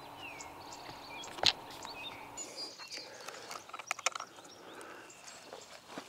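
Mixed spring songbirds chirping and singing, many short high notes and brief whistled glides. A sharp click comes about one and a half seconds in, and a quick run of clicks comes around four seconds in.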